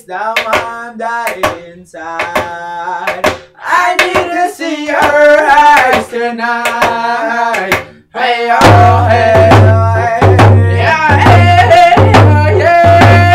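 Two men singing a Cree song to a steady beat on round hand drums. The singing and drumming grow louder about two-thirds of the way through.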